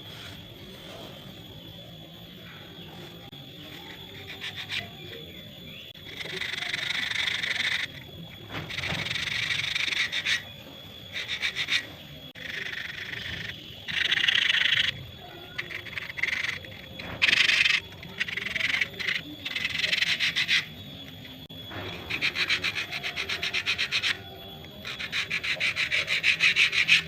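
Electric arc (stick) welding: the arc crackles and sizzles in a series of short runs, each lasting one to two seconds with brief pauses between them, as a seam is laid in short stitches.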